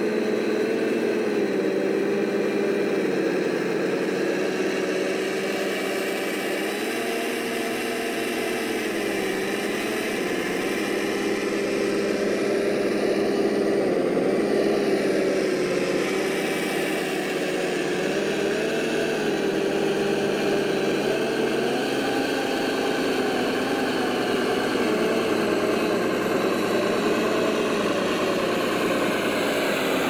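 Large RC model construction vehicle running steadily, an engine-like hum whose pitch shifts up and down slightly every few seconds.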